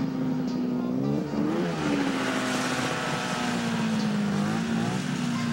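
A snowmobile engine running steadily. It revs up and drops back once a little over a second in, followed by a rushing noise for a couple of seconds.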